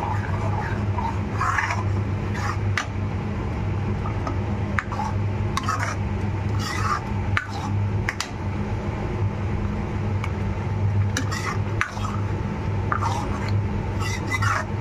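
A spoon stirring thick curry gravy in a metal pan, with irregular clinks and scrapes against the pan's sides and bottom, over a steady low hum.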